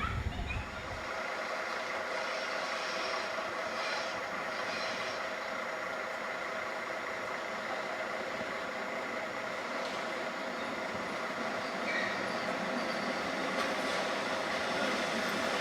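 A train running steadily, a constant mechanical noise with a steady hum through it.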